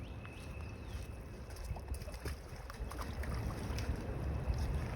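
Wind buffeting the microphone as a steady low rumble that grows a little stronger in the second half, with faint short bird chirps above it.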